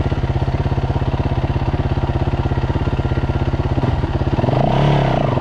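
Dirt bike engine idling with a steady, even beat close by, with one brief rev up and back down near the end.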